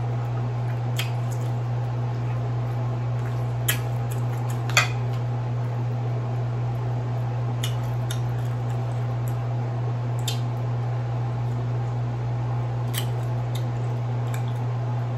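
Close-up eating sounds of king crab legs: wet chewing and picking at the crab meat and shell, with scattered sharp clicks, over a steady low hum.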